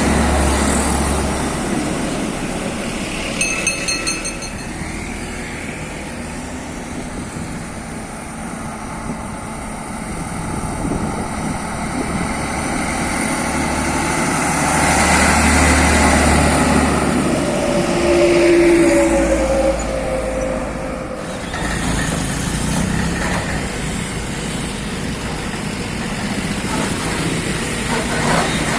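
Heavy tractor-trailer trucks driving slowly past, the engine and tyre noise swelling and fading as they go by.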